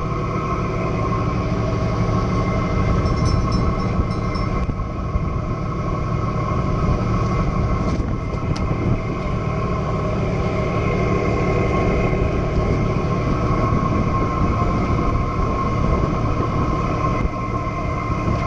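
Fishing boat's engine running at a steady speed, a constant drone with a steady whine over a low rumble.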